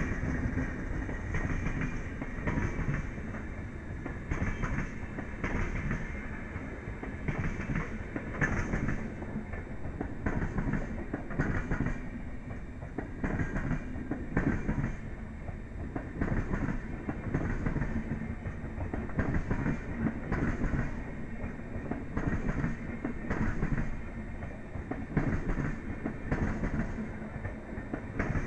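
LHB passenger coaches of an Indian Railways express rolling past, steel wheels running over the rail joints in a recurring clickety-clack above a steady rumble.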